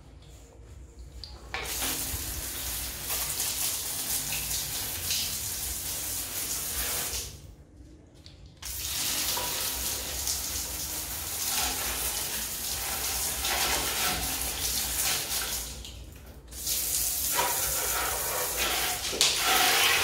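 Water spraying from a handheld shower sprayer onto the plastic dust bin and filter grille of an Electrolux vacuum cleaner, splashing as it rinses them. The spray starts about a second and a half in, stops for a second or so near the middle, then runs again with a short lull later on.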